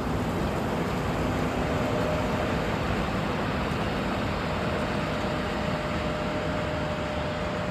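Combine harvester running at work, a steady even machinery noise with a faint steady hum.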